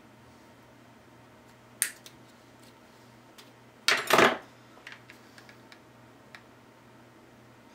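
Handling noises of craft tools on a tabletop: a sharp click about two seconds in, then a louder double clatter around four seconds as the hot glue gun is picked up, followed by a few faint ticks.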